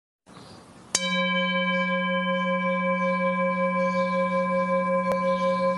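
A bell-like tone, struck once about a second in, then ringing steadily at several pitches at once with a slow wavering and no fading. A faint click near the end.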